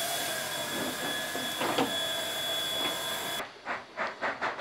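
Steady steam hiss with a high steady tone from the standing SNCF 141 R 420 Mikado steam locomotive, with a couple of light clicks. About three and a half seconds in it gives way to the locomotive working under steam, its exhaust beating about three to four times a second.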